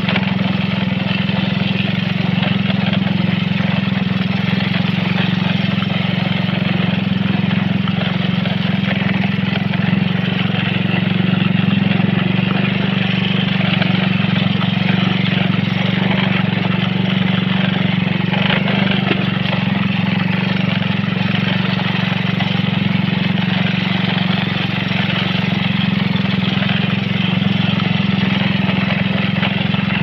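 Motorcycle engine running at a steady speed while riding, with a steady hiss of wind and road noise over it.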